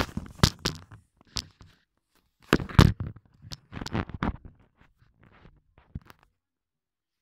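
Handling noise: knocks, scrapes and rustles as the phone camera and plastic Lego toys are moved about and set down on a wooden floor, in uneven clusters that stop suddenly a little after six seconds in.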